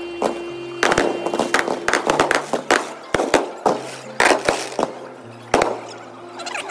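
Aerial fireworks shells bursting overhead: a quick, irregular run of sharp bangs and crackles, a few standing out louder than the rest.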